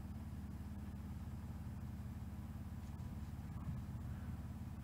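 Steady low hum of a desktop PC's fans running while its i5-12600K CPU is under a benchmark load.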